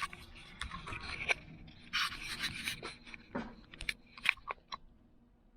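Rusty Channellock tongue-and-groove pliers being handled: scraping and rustling, then a run of short light clicks in the second half.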